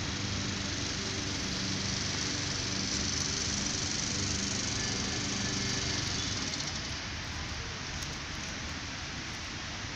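Steady outdoor hiss with a faint low hum underneath, a little louder from about three seconds in and easing off after six.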